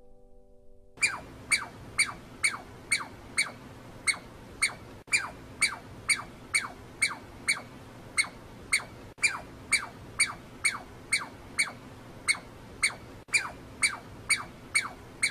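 A tree squirrel calling over and over, about two calls a second, each call a short squeak falling quickly in pitch. The calls start about a second in, after the last faint notes of background music.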